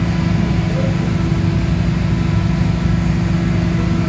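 A fishing boat's engine running steadily, a constant low drone with an even hum.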